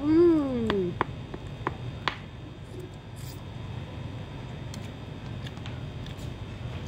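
A short hummed "mmm" from the eater, rising then falling in pitch, followed by a few light clicks of a metal fork against a plastic food container over a steady low hum.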